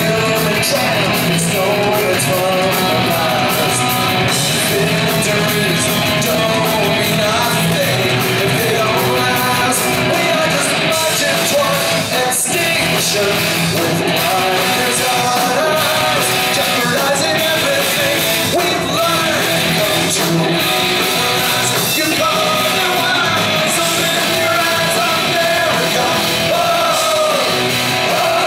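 Punk rock band playing live: drums with cymbals, electric guitars and a sung, partly shouted lead vocal, loud and continuous.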